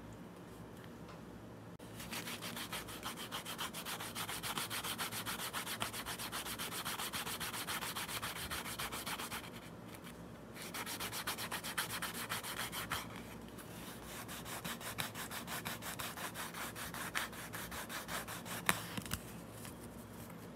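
Canvas cloth rubbed quickly back and forth along the edge of a piece of vegetable-tanned leather, burnishing the edge, in three bouts with short pauses between them. A single sharp click near the end.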